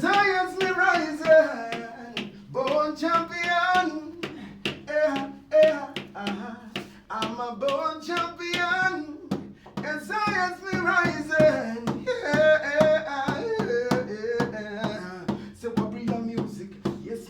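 A man singing unaccompanied, with a steady beat of sharp hand taps or claps under the voice.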